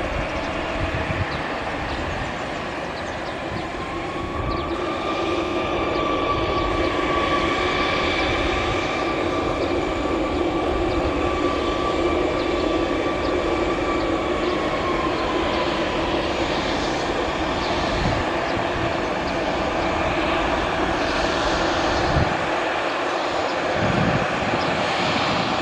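Bombardier CRJ1000 regional jet's rear-mounted turbofan engines running at taxi power, a steady jet whine over a low rumble. A higher whining tone rises slightly about four seconds in and fades out after about fifteen seconds.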